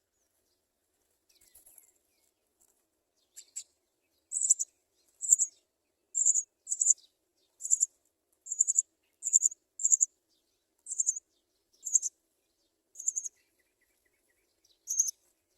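House sparrow chicks making high-pitched begging chirps, short and repeated about once a second, beginning about three seconds in.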